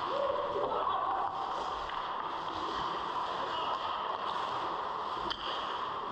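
Ice hockey game close to the goal: skate blades scraping the ice over a steady rink hum, a brief shout early in the first second, and one sharp knock about five seconds in.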